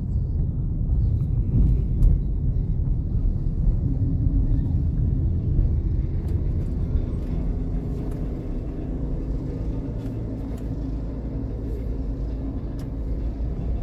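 Chevrolet Onix turbo being driven at low speed, heard from inside the cabin: a steady low rumble of engine and tyres on the road, with a few faint light ticks.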